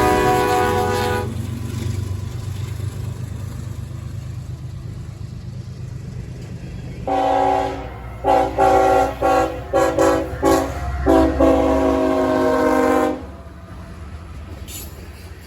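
Diesel locomotive's multi-chime air horn: a blast that ends about a second in, then after a stretch of low locomotive rumble, a longer blast, a quick string of about half a dozen short toots, and a final held blast that cuts off near the end.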